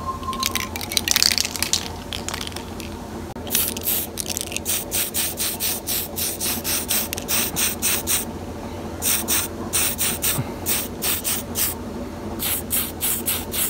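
Tamiya TS-6 matt black aerosol spray can sprayed in many quick short bursts, about three a second with a couple of brief pauses, laying a very light coat. About a second in there is a louder burst of noise lasting about a second.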